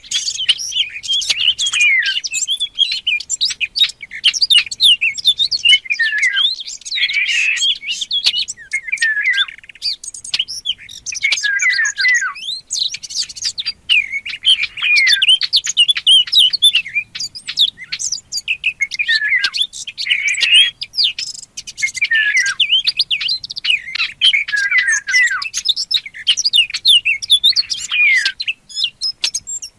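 Songbird singing a fast, busy warble of varied chirps, twitters and clicks, in phrases of a few seconds with brief pauses between them.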